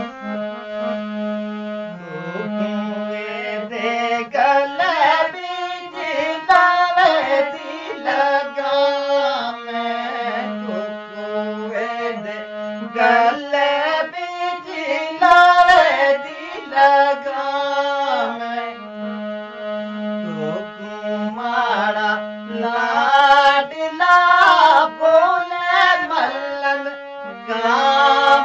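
Hand-pumped harmonium holding a steady drone and playing a melody, with a Pahadi folk song sung over it from about two seconds in.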